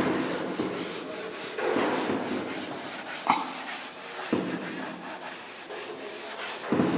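Chalkboard duster rubbing across a chalkboard in repeated wiping strokes, erasing chalk. There is a sharp tap about three seconds in and another a second later.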